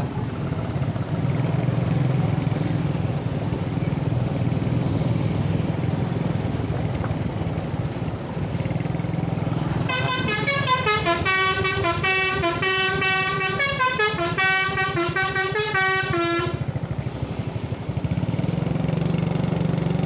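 Steady rumble of road traffic, then about halfway through a bus's Basuri V3 telolet multi-tone horn plays a quick melody of stepping notes for about six seconds and cuts off suddenly.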